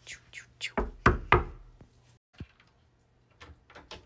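Knocking on a wooden door: a quick run of knocks about a second in, then one more knock a second later.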